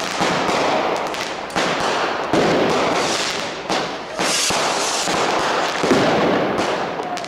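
Street fireworks going off: a dense, continuous crackle with several sharper bangs breaking through it.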